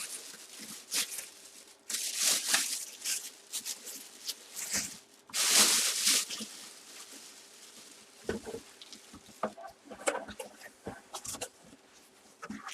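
Rustling and crinkling of packaging and a trading card being handled, in several bursts, followed from about 8 seconds in by a run of short clicks and taps.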